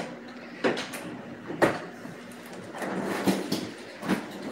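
Kitchen drawer being slid and rummaged: a few sharp knocks and clicks of things moved inside it, with a low sliding rumble about three seconds in.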